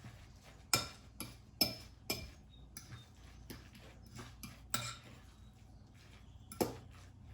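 A fork clinking and scraping irregularly against a mixing bowl as egg is stirred into shredded zucchini, about ten strikes, the loudest ringing briefly.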